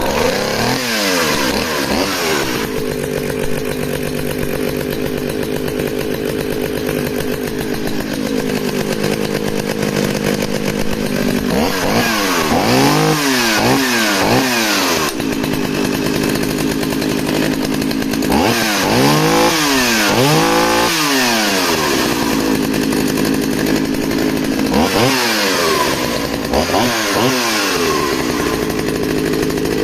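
Vintage Partner S50 two-stroke chainsaw, with a Walbro WS carburettor, running just after being started with the choke off. It holds steady stretches broken by several bursts of revving, with the pitch climbing and dropping as the throttle is blipped.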